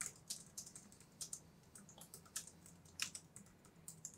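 Typing on a computer keyboard: faint, irregular keystrokes with uneven gaps between them.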